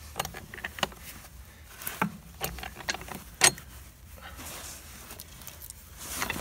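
Metal clicks and knocks as a PTO driveshaft's locking coupler and yoke are turned by hand on the tractor's PTO spline, with the loudest knock about three and a half seconds in.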